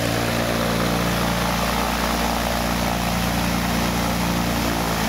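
Cessna Columbia 400's turbocharged six-cylinder piston engine and propeller running steadily at a constant speed while the plane stands still.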